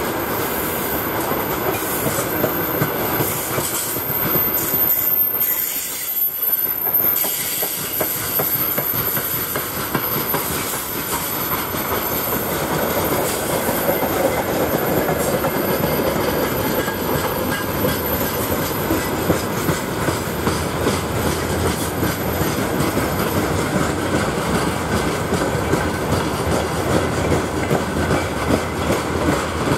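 Loaded freight wagons (open gondolas, then grain hopper cars) rolling past close by: steady rumble of steel wheels on the rails. Rhythmic wheel clacks over the rail joints become more distinct in the second half.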